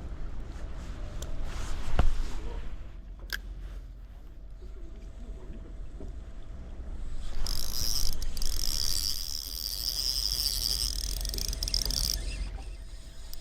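Steady low rumble of a fishing boat at sea, with a sharp knock about two seconds in. From about halfway, a high-pitched hiss with a wavering whine lasts about five seconds, then stops.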